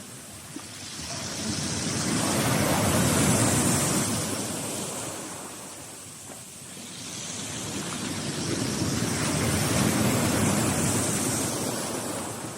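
Black Sea waves breaking on the shore and washing back, two surges rising and fading over several seconds each.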